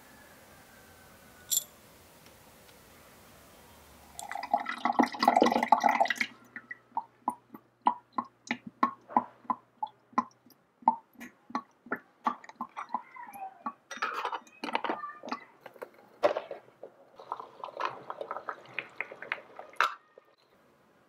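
Water from a miniature kitchen faucet splashing into a small steel pot of whole mushrooms: a loud burst of splashing about four seconds in, then a long run of small drips, splashes and clicks. Before that it is nearly quiet apart from one sharp click.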